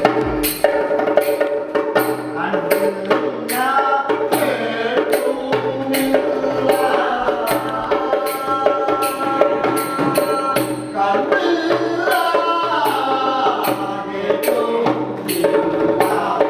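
Live stage music: voices singing a melody over a steady beat of small hand cymbals, about two strokes a second, with a hand drum.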